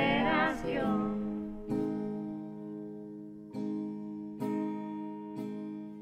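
Singing voices finish the last line of a song about a second in. Then an acoustic guitar strums the same chord four times, letting each strum ring and fade.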